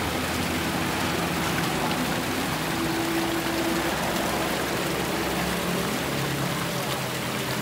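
Water from a small rock waterfall splashing steadily into a garden pond, an even rushing and trickling.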